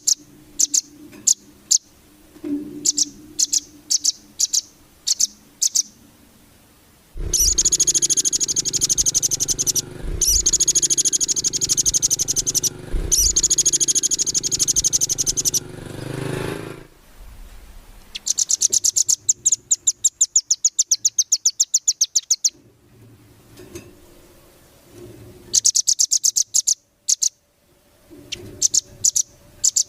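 Velvet-fronted nuthatch (rambatan) calling: spaced sharp high chips broken by several fast rattling trills of two to four seconds each.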